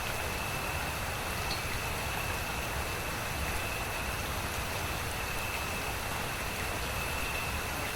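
Steady rain falling, an even hiss with no distinct drops standing out, and a thin steady high tone running through it.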